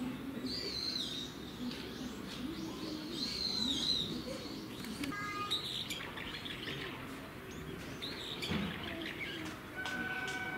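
Small birds chirping: high calls that rise and fall, repeated several times, over low background noise. A steady held tone comes in near the end.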